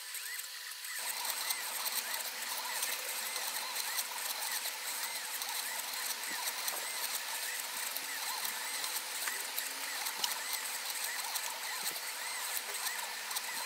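Small 28BYJ-48 stepper motors of a pen plotter whining as they drive the pen, the pitch sweeping up and down again and again as the pen traces curves. The sound changes character about a second in.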